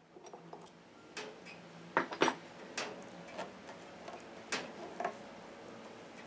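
Irregular light clicks and knocks of small hard objects being handled, about a dozen scattered over several seconds, the loudest pair about two seconds in.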